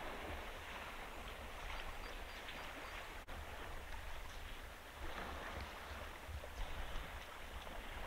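Water splashing and trickling as African elephants drink at a waterhole, dipping their trunks into the water and drawing it up, over a steady low rumble.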